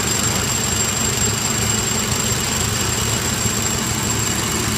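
1/8-scale live-steam Shay locomotive engine running steadily under steam on a stand: a continuous hiss with fast, even mechanical running beneath it.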